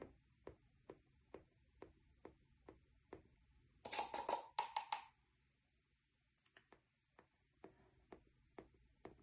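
Faint, quick taps, about two a second, of a stick dabbing dots of acrylic paint onto a canvas. The rhythm pauses for a couple of seconds before going on. A short cluster of louder scratchy strokes comes about four seconds in.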